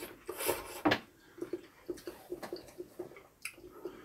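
Close-up eating sounds: a wet slurp of glass noodles and broth about half a second in, a sharp click near one second, then steady wet chewing, several soft bites a second.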